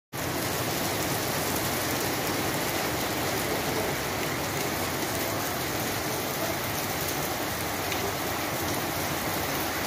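Heavy rain falling steadily, a constant even hiss of rain on wet pavement.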